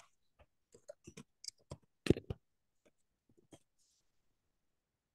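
Computer keyboard keys clicking in an irregular run as a short phrase is typed, with a louder clack about two seconds in; the typing stops about three and a half seconds in.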